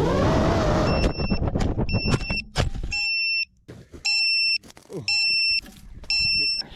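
FPV drone motors whirring with shifting pitch, then cut off by a few sharp knocks about a second in. After that an electronic warning beeper sounds a high two-tone beep about once a second: the alarm after the drone lost its receiver signal and failed safe.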